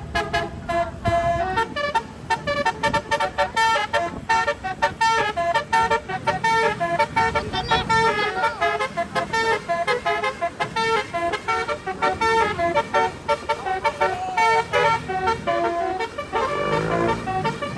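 Indonesian tour bus's telolet (basuri) multi-tone horn playing a fast tune of short stepped notes without a break. Near the end a wavering, sliding tone comes in.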